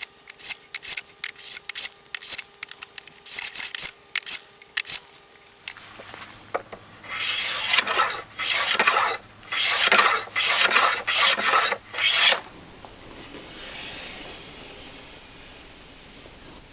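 Hand plane shaving wood: a run of quick, short rasping strokes, then longer, louder strokes. A steadier hiss takes over for the last few seconds.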